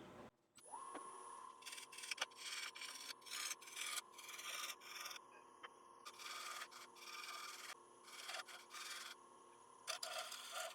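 Wood lathe running with a steady hum while a bowl gouge shear-scrapes the outside of a damson bowl in repeated short strokes, cleaning off hardened CA glue.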